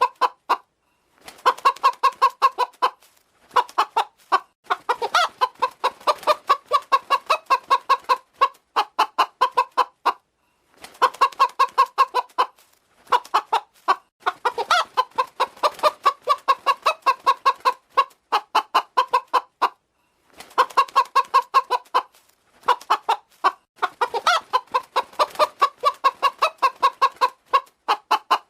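Hen clucking in rapid runs of short notes, bout after bout with brief pauses between.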